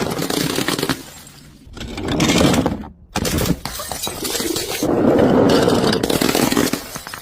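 Glass bottles being crushed and shattering, in four crunching bursts of about one to two seconds each with short breaks between them.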